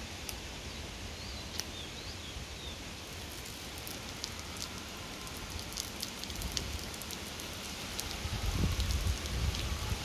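A urine stream splashing and pattering onto the top of an upturned clay pot, with wind buffeting the microphone, gusting more strongly near the end.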